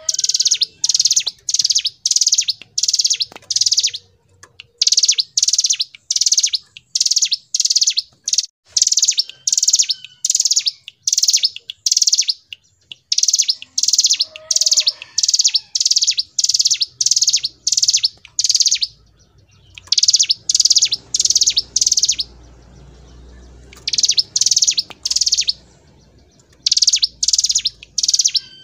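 Ciblek gunung, a prinia, singing its rapid, high, drilling song ('ngebren'). Short buzzy phrases repeat almost without pause, broken by a few brief gaps.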